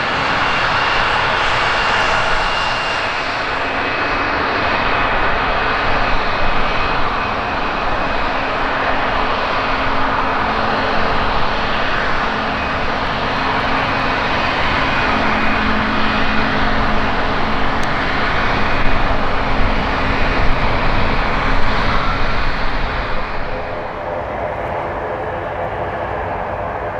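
The twin Pratt & Whitney Canada PW127G turboprop engines of a CASA C-295M run through the landing roll-out and taxi: a steady propeller drone with faint steady tones in it, easing slightly near the end.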